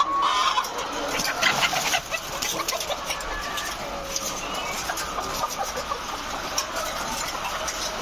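A large flock of caged laying hens clucking and calling together, a continuous overlapping chatter of many short calls, with scattered sharp clicks among them.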